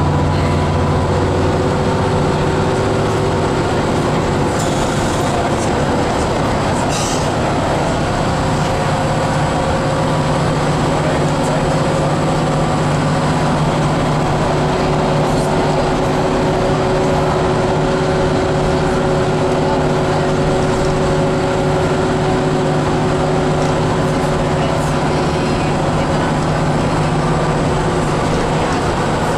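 Inside a moving bus at steady speed: engine and tyre noise, a constant low drone with a faint whine above it.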